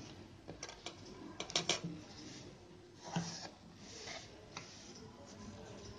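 Faint rustling of blouse fabric being folded and smoothed flat by hand on a sewing machine bed, with scattered light clicks and taps, a small cluster of them about a second and a half in.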